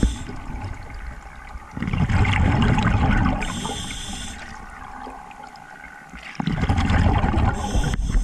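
Water sloshing and gurgling around floats and a barrel, heard from an underwater camera, swelling and fading in surges every few seconds.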